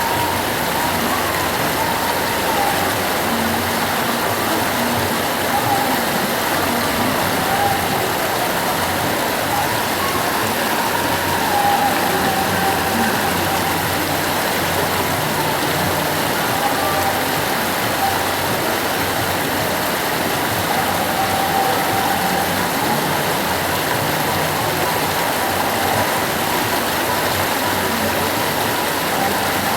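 The Ganges rushing steadily, a constant churning of fast-flowing water, with a faint wavering tone rising and falling in the background now and then.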